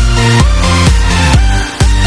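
Electronic dance music with a heavy, steady bass beat, about two beats a second, the level swelling back after each beat.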